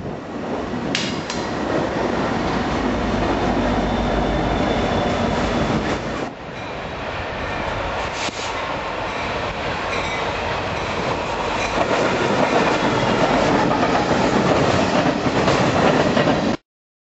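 Freight trains passing close by: locomotives and the steady rumble and clatter of freight cars rolling over the rails. There is a short dip about six seconds in, and the sound cuts off abruptly near the end.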